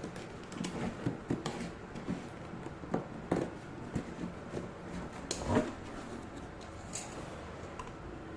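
Laptop box and its packing being handled by hand: scattered light knocks, taps and rustles at an uneven pace, the loudest knock about five and a half seconds in, fewer towards the end.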